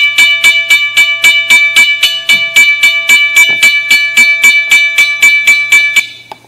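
Recorded railroad crossing bell played through a small speaker by an Arduino sound module, ringing about four strikes a second. It cuts off suddenly about six seconds in.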